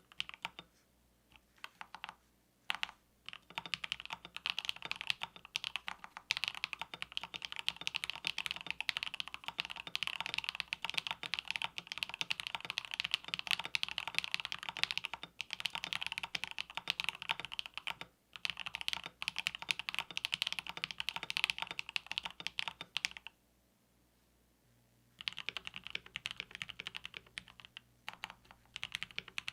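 Typing on a KBD67 Lite R2 65% custom mechanical keyboard fitted with Tangerine linear switches: quick runs of keystrokes with short breaks. Near the end the typing stops for about two seconds, then resumes on the same board now fitted with Gateron Black Ink switches.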